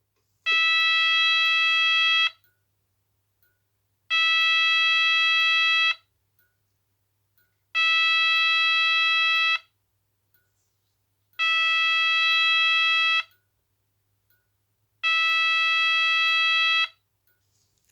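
AE&T T105N fire alarm sounder sounding its tone no. 17: a steady, single-pitched electronic tone that pulses on for about two seconds and off for about two seconds, five times over.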